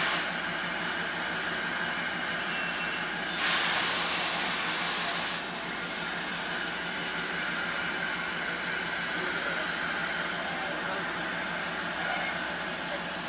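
Narrow-gauge Darjeeling Himalayan Railway steam locomotive standing with steam hissing steadily, and a louder blast of escaping steam about three and a half seconds in that lasts about two seconds.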